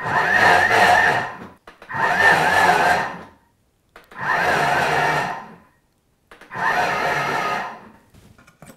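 Thermomix food processor on turbo, pulsed four times: each time the blade whirs up for about a second and a half through ground almonds, icing sugar and cocoa powder, then cuts off. The pulses mix the dry macaroon ingredients evenly.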